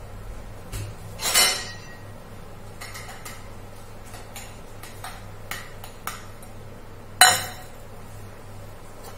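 Metal kitchen utensils and pots being handled: two loud clangs with a short ring, about a second in and near the end, with lighter clinks and knocks between.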